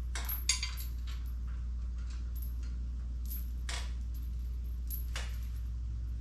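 Scattered light metallic clinks and taps of hand tools and steel jack parts being handled, with one sharper clink about half a second in, over a steady low hum.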